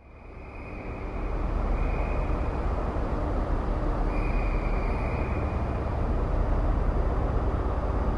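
A steady low rumbling noise, fading in over the first second or two, with faint high tones coming and going above it.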